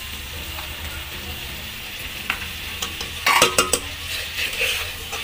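Vegetables and soaked rice and dal sizzling in an aluminium pressure cooker while a metal ladle stirs them. The ladle scrapes and clinks against the pot, with a quick run of loud knocks a little past the middle.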